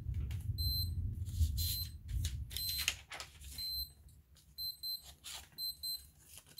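Heat press timer beeping: short high beeps, sometimes doubled, repeating about once a second, the alarm that the pressing time is up. Under it, paper rustles as the transfer paper is peeled off a freshly pressed wooden coaster, with a low rumble of handling in the first few seconds.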